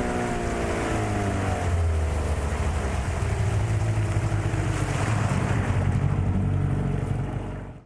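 Outboard motor running as a boat moves along, with water and wind noise over it; its note drops a little in the first couple of seconds, then holds steady.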